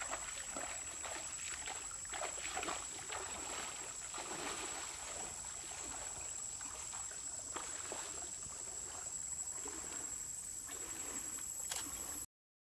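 Water sloshing and splashing irregularly as someone wades through a shallow stream, over the stream's steady flow. The sound cuts off abruptly near the end.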